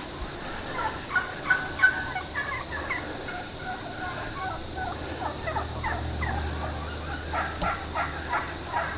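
Wild turkey hens calling: a string of short, falling notes from several birds, overlapping and repeated throughout — the soft yelps and clucks of hen talk in a fall flock.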